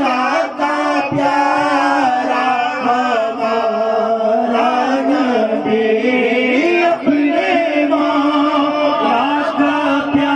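A man singing a naat, an Urdu devotional song in praise of the Prophet, into a handheld microphone, drawing out long, wavering, ornamented notes.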